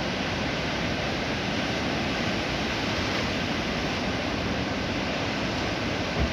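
Ocean surf breaking on the shore, a steady rush of water. A brief low bump near the end.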